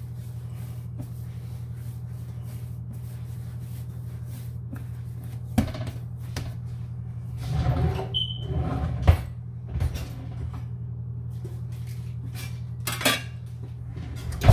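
Hand-kneading and handling of dough on a granite countertop, with scattered knocks and clatter of kitchen things: a cluster about halfway through, and a sharp clack near the end as a metal bench scraper is set down. A steady low hum runs underneath.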